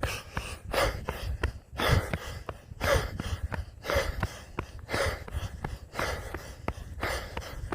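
A runner breathing hard and audibly in a two-steps-in, one-step-out rhythm, with a loud breath about once a second. His footsteps strike the ground in time with it.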